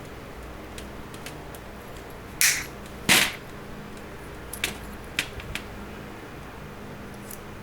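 Sharp clicks and knocks of small hard parts or tools being handled on a work surface, with two louder knocks about two and a half and three seconds in and a few lighter ticks after, over a steady low hum.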